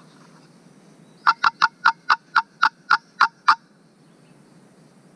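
A run of about ten short, sharp turkey yelps, loud and close, at about four a second and slowing slightly toward the end.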